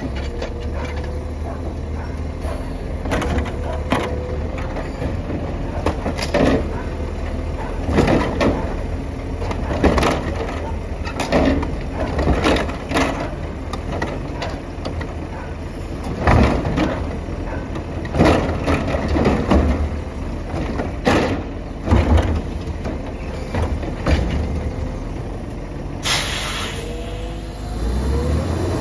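Labrie Expert Helping Hand automated arm on a CNG Mack LEU garbage truck lifting a recycling cart and dumping it into the hopper, with repeated loud bangs as the cart is shaken and its contents fall in, over the steady running of the truck's engine and hydraulics. Near the end a burst of hissing air.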